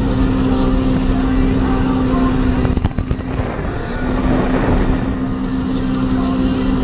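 Sea-Doo Wake 170 personal watercraft's engine running at a steady cruising pitch. About three seconds in, the engine tone breaks off for roughly a second, with a couple of sharp knocks, then comes back steady.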